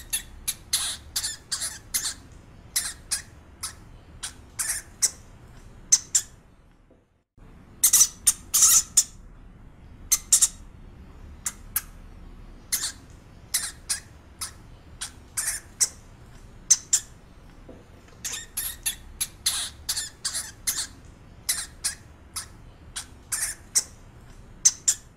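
Small pet rodent, a hamster, making rapid, irregular short high-pitched squeaks and clicks, several a second, with a brief break about seven seconds in.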